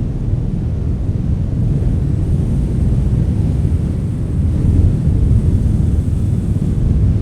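Strong wind blowing as a loud, deep rumble, swelling a little past the middle.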